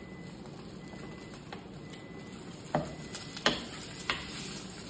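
Potato-and-egg tortilla sizzling in a nonstick frying pan, with a wooden spatula scraping in the pan and knocking against it three times in the second half as the tortilla is worked loose to be turned.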